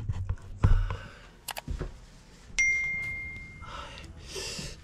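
A single bell-like ding, a clear tone that rings and fades out over about a second. It is the notification sound effect of an on-screen subscribe-button animation. Soft knocks and rustling come before it.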